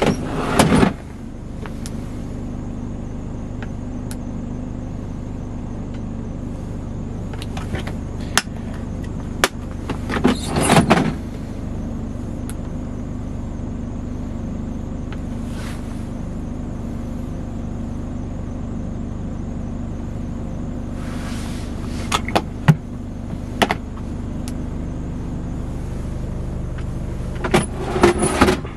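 Scania R410's diesel straight-six idling steadily, heard from inside the cab, with a few clusters of clicks and knocks from cab storage compartments and the fridge being opened, pressed and shut.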